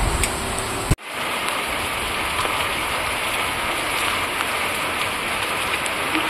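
Heavy rain pouring onto a paved street and splashing into standing water, a steady even hiss. A low rumble lies under it in the first second, and the sound drops out for an instant about a second in.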